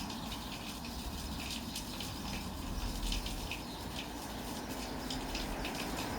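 A street lamp post giving off a steady fizzing, crackling noise, quick irregular crackles over a hiss, that sounds like electricity, though its cause is unknown.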